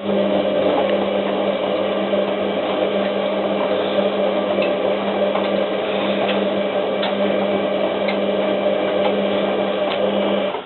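Hotpoint 9534A washing machine's drum motor turning the drum for one main-wash tumble during a 95 °C boil wash. It starts suddenly, hums steadily for about ten seconds, then stops.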